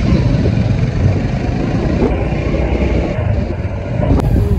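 Heavy wind rumble on the phone's microphone mixed with road and engine noise from a moving two-wheeler carrying three riders. There is a sharp click about four seconds in.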